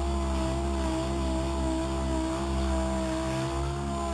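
Power sander running steadily against the inside seams of a plywood boat hull. It has a low hum and a motor whine that wavers slightly in pitch as the sander is pressed and moved.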